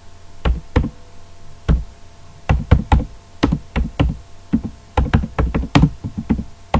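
Typing on a computer keyboard: irregular sharp key clicks, a few spaced out at first, then quicker runs of keystrokes.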